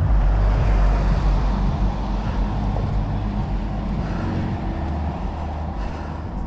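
Vehicle on the move: a steady low engine and road rumble with a hiss of road noise over it.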